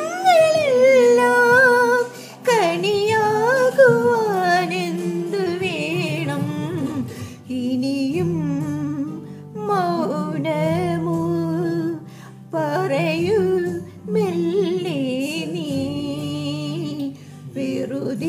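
A Malayalam film song playing, a gliding melodic vocal line over instrumental backing, with a woman's voice humming and singing along.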